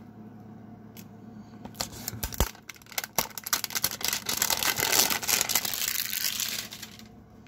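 Packaging of a baseball card hanger box being torn open: a few sharp clicks and snaps, then a continuous crinkling tear, loudest about five seconds in.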